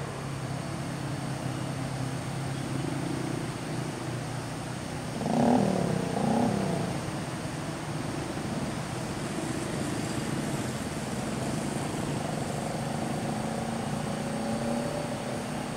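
Vehicle engines running in a steady hum, from traffic stopped or crawling on the road. About five seconds in, two short calls that rise and fall in pitch stand out above the hum.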